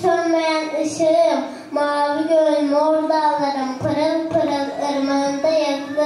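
A child singing a slow melody with long held notes.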